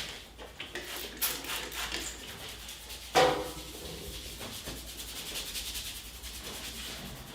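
Hands rubbing over skin and hair during a barber's head and face massage, in repeated brushing strokes, with one brief louder sound about three seconds in.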